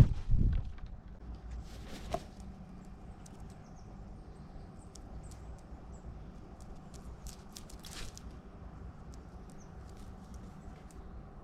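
A heavy bump at the very start, then scattered light clicks and taps over a faint low background.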